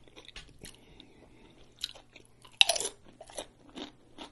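Close-miked crunching of tortilla chips being bitten and chewed: soft chewing crunches and small clicks, with one loud crunchy bite a little past halfway through.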